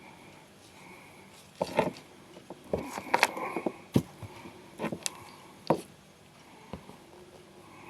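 Irregular clicks and light knocks, several clustered in the middle, over a faint background.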